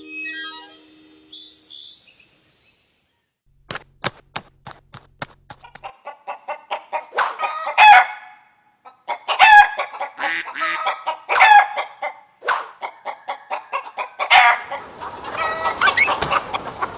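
Chickens clucking: a quick run of clucks starts a few seconds in and builds into louder squawking calls, and a rooster crows near the end. The first seconds hold the fading end of a chime-like music phrase.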